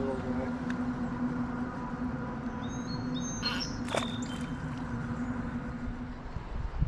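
A few short bird chirps about three seconds in, over a steady low hum that stops near the end.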